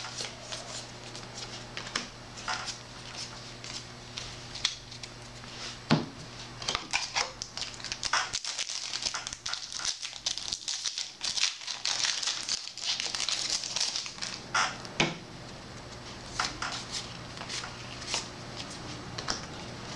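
Yu-Gi-Oh booster packs and cards handled by hand: foil pack wrappers crinkling and cards clicking and sliding against each other in a run of small rustles, with a denser stretch of crinkling through the middle.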